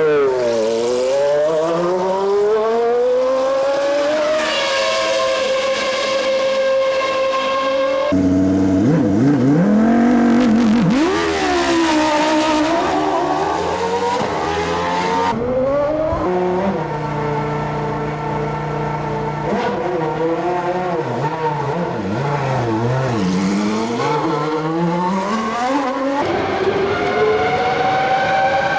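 Formula 1 car engines running at very high revs, their pitch falling through downshifts under braking and climbing again as they accelerate, over several passes with abrupt cuts between them.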